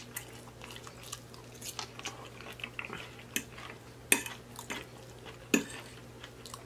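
Metal fork clicking and scraping against a plate as food is stirred and scooped, with several irregular sharp clicks, the loudest about four and five and a half seconds in. Soft chewing sounds lie between the clicks.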